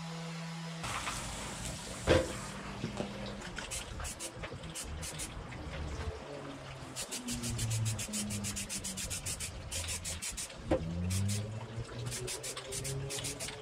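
A random orbital sander's motor hum stops abruptly about a second in. After that an aerosol spray-paint can hisses briefly, then is shaken and sprayed, its mixing ball rattling in quick runs of sharp clicks.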